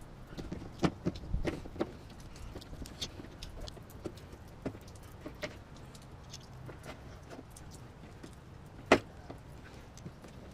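Scattered light clicks and clinks of hand work, with one sharp, loud click about nine seconds in.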